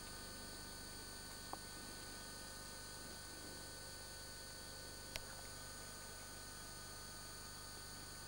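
Faint, steady electrical hum with thin constant tones, broken by two faint short clicks about a second and a half in and about five seconds in.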